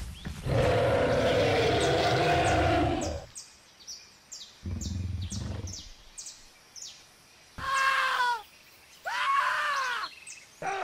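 Dubbed dinosaur sound effects: a long, loud roar for about three seconds, a shorter low growl, then two high shrieking calls that rise and fall in pitch near the end.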